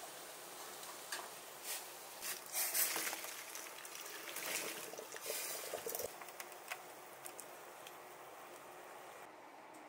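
Water at a rolling boil, with splashing and pouring in the middle as boiled edamame and their water are tipped from a steel bowl into a mesh strainer in a stainless sink, with a few light clinks. The splashing dies down near the end, leaving the steady hiss of the boil.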